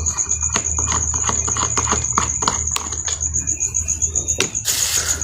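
Irregular clicks and taps of hand tools and plastic parts as a Makita drill's housing is worked open by hand, with a short scraping hiss near the end. A cricket chirrs steadily in the background over a low hum.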